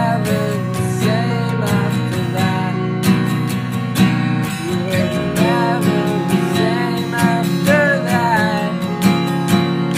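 Electronic music track: held chords under a run of sharp percussion hits, with a melodic line that bends up and down in pitch.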